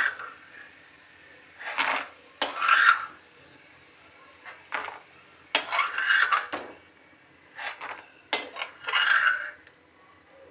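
A steel spoon scraping and clinking in a steel kadhai as fried peanuts are scooped out of the oil and tipped onto a steel plate. It comes as short clattering bursts every second or so, with quiet gaps between.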